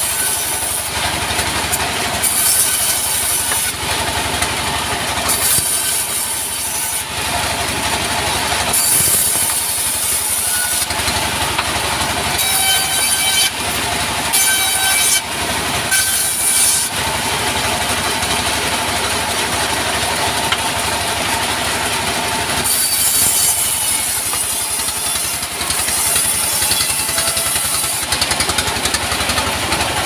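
Diesel engine driving a vertical band saw runs steadily while the blade cuts through a log slab. A high rasping hiss of the cut comes and goes several times over the engine's constant rumble.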